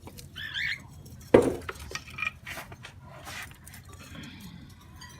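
A short bird call, then one loud clink about a second later, like a cage dish or feeder being knocked, followed by a few lighter clinks.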